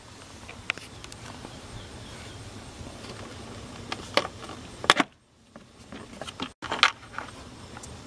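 Hands handling the plastic kick and sill trim panels in a car's footwell: a few scattered plastic clicks and knocks, the loudest about five seconds in.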